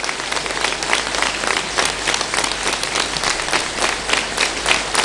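A large audience applauding, dense and steady, with many individual claps standing out.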